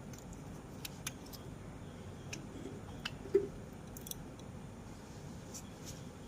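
Scattered small clicks and taps from a spark plug being handled and cleaned by hand after a petrol rinse, with one sharper knock about three and a half seconds in.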